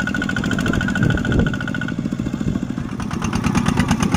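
Single-cylinder Kubota diesel engine of a two-wheel walking tractor running with a fast, even beat, its wheels churning in deep paddy mud. A high steady whine over the engine stops about two seconds in.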